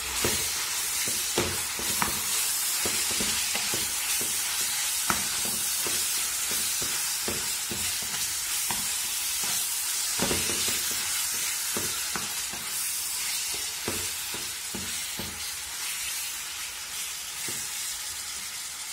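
Minced beef sizzling as it fries in a nonstick pan, with irregular taps and scrapes of a wooden spatula breaking up and stirring the meat.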